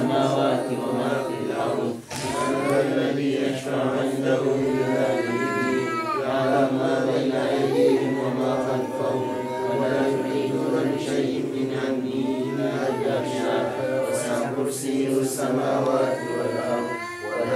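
A group of voices chanting together in a sustained religious chant, the many voices overlapping.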